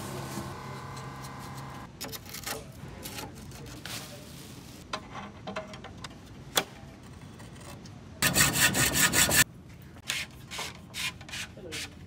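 Workshop handling noise from a carbon road bike frame build: scattered clicks and short rustles of parts and packaging, with one loud rough rubbing rasp lasting about a second, about three-quarters of the way through. A steady hum of several tones stops about two seconds in.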